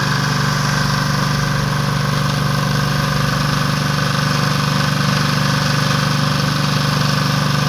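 Kipor diesel generator engine running steadily.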